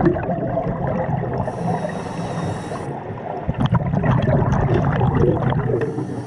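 Scuba diver breathing through a regulator underwater: a hissing inhale through the regulator about a second and a half in, then a long stretch of gurgling exhaled bubbles, with the next inhale hiss starting near the end.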